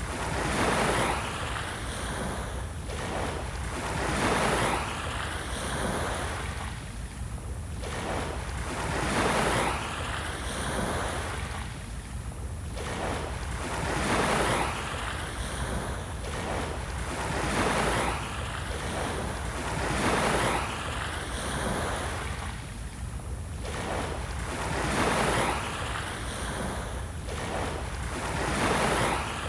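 Small waves breaking and washing up on a beach, one soft surge of surf every few seconds.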